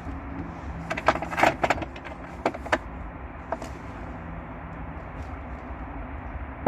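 Scattered small clicks and knocks of a metal L bracket and screws being handled and set against wood, clustered about a second in with a few more later. A faint steady hum runs underneath at times.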